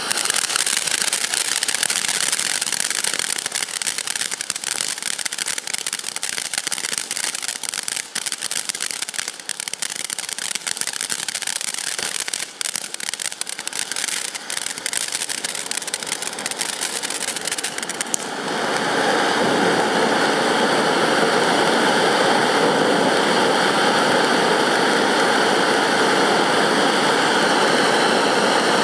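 Nemo Fish ground fountain firework spraying sparks from three spouts: a loud rushing hiss full of fast crackles. About 18 seconds in it shifts to a louder, steadier rushing hiss with fewer crackles.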